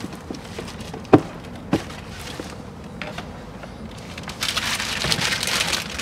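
Car's plastic glovebox being handled and lifted out of the dashboard: two sharp plastic knocks about a second in and shortly after, then a stretch of scraping and rustling near the end.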